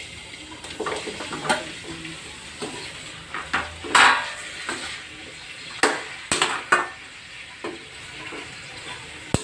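Chicken feet sizzling as they fry in hot oil, while a utensil stirs them and scrapes and clinks against the pan at irregular moments. The loudest scrape comes about four seconds in, with a cluster of clinks a couple of seconds later.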